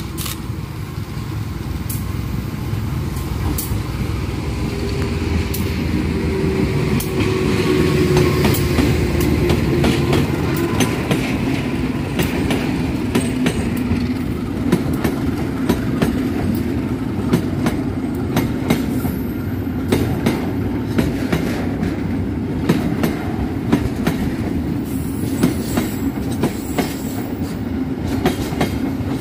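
A CC 201 (GE U18C) diesel-electric locomotive comes closer and passes, its engine growing louder over the first several seconds. Then a train of tank wagons and flat wagons rolls by, with the wheels clicking over the rail joints.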